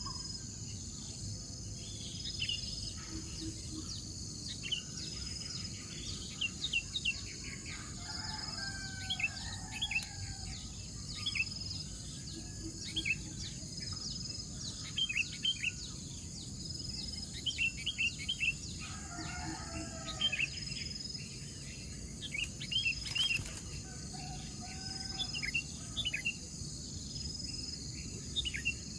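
Birds chirping in many short, high notes over a steady high insect drone, with a short high tone repeating about every two seconds. Twice, a cluster of lower, longer calls joins in.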